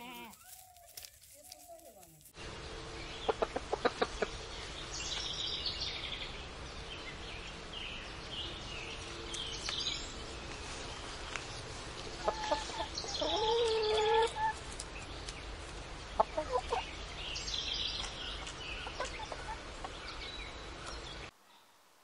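Domestic chickens clucking as they peck at grain, with one longer, louder hen call about two-thirds of the way through and high chirping in the background. The sound cuts off near the end.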